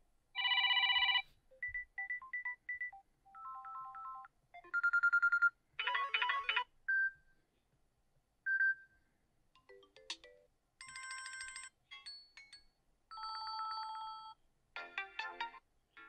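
A Samsung Galaxy F14's speaker plays short previews of its built-in ringtones one after another: about a dozen electronic beeps, chimes and bell tones. Each is cut off after a second or less as the next tone in the list is selected.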